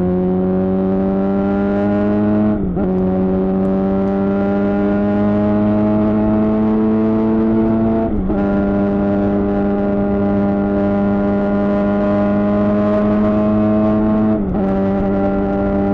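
Suzuki GSX-R600 inline-four sport-bike engine through a Yoshimura R11 exhaust, accelerating under steady throttle. The pitch climbs slowly in each gear, with a brief dip at each of three upshifts.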